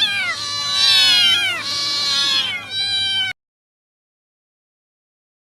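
Domestic cat meowing loudly in a run of drawn-out calls, several in a row, each falling in pitch. The calls cut off suddenly about three seconds in.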